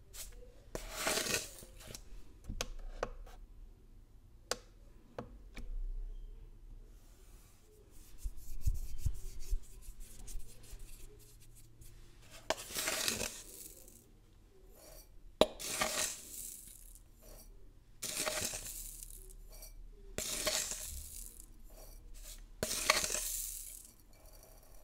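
A metal spoon scraping and scooping powdered herb granules out of a plastic jar, with small clicks and clinks of the spoon against the jar and glass dish. The scrapes come as several short rustling strokes a couple of seconds apart, with quieter handling in between.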